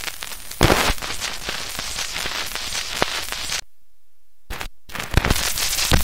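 Surface noise of a shellac 78 rpm record, not yet cleaned up: a steady hiss thick with crackles and clicks, with a loud pop just under a second in. It cuts out abruptly for about a second past the middle, then comes back.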